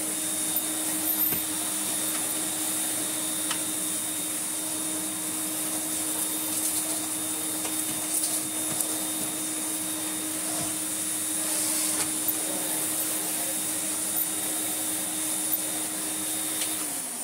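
Electrolux Z350E cylinder vacuum cleaner running steadily with its motor hum, a Miele floor tool pushed over carpet with a few light knocks. Near the end the motor winds down, its pitch falling.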